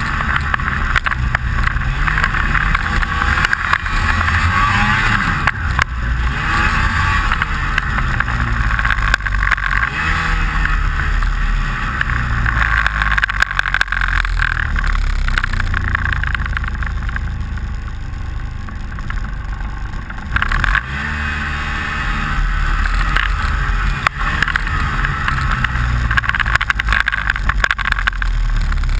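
Snowmobile engine running under throttle, its pitch rising and falling as the rider speeds up and slows, easing off for a few seconds past the middle before picking up again. A steady rattle of unknown cause runs along with it.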